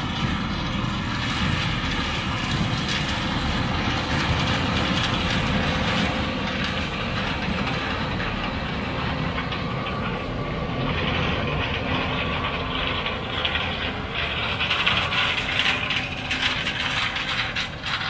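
Combine running while harvesting corn: a steady engine hum under a busy mechanical rattle, the rattle growing louder from about halfway through.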